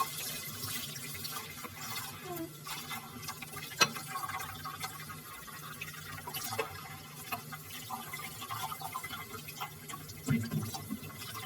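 Water running at a tap or filling a vessel, with scattered light clicks and knocks and one sharper click about four seconds in.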